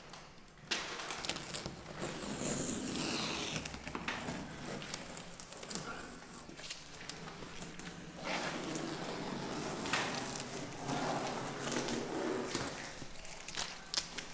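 Masking tape being peeled off the painted edge of a fiberglass camper shell's window, a crackling rip that comes in several long pulls with short pauses between them.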